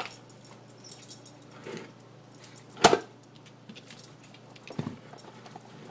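Dog nosing and eating from an AiKiou Junior slow-feeder bowl, its plastic lid being pushed around: scattered small clicks, rattles and jingles, with a few knocks and one sharp loud knock about three seconds in.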